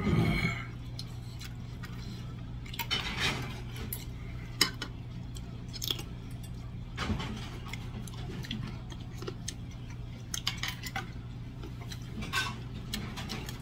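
Stainless-steel chopsticks and spoons clinking and scraping against metal bowls and dishes in scattered short clicks, with one sharper clink about four and a half seconds in, over a steady low hum.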